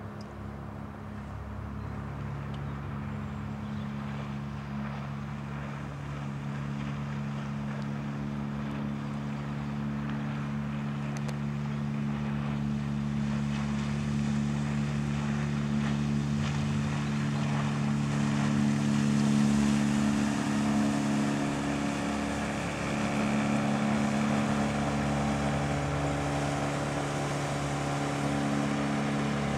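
Four-stroke 8 hp Honda outboard motor running at a steady cruising speed and pushing a small fishing boat along, its hum holding one pitch. The sound grows louder as the boat comes near, peaking about two-thirds of the way through, with a hiss of water from the bow wave and wake.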